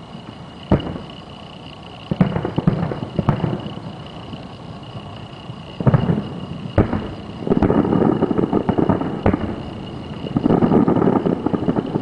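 Distant fireworks show: single booms of aerial shells, then two longer stretches of rapid, rolling reports near the end.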